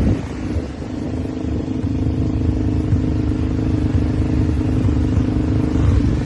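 ATV (four-wheeler) engine running steadily, with an even hum over a low rumble.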